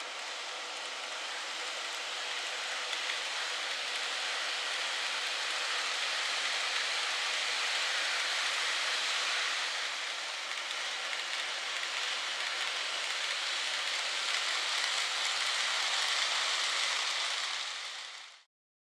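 KATO N-scale E351 model train running on layout track: a steady rushing noise of small wheels and motor that swells, dips about halfway through and swells again as the train passes, then cuts off suddenly near the end.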